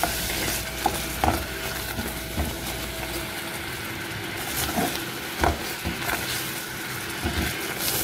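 Guava paste and water sizzling in a small pan on the stove while a silicone spatula stirs it, with a few light knocks of the spatula against the pan. The paste is melting down into a syrup.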